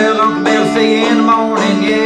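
Five-string banjo played clawhammer style in open G tuning: a steady, unbroken run of plucked and brushed notes over ringing lower strings.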